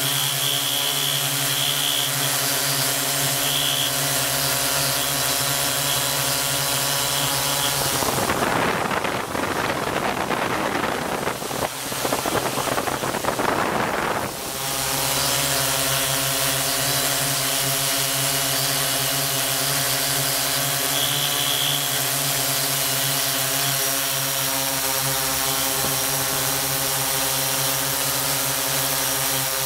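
Multirotor drone's electric motors and propellers humming steadily, a stack of several pitches. About eight seconds in, the even hum gives way to a rough rushing noise for some six seconds, then the steady hum returns.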